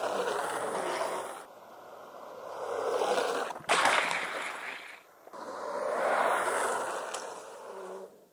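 Longboard wheels rolling and sliding on asphalt during squat slides: a rush of noise that swells and fades, with several abrupt breaks.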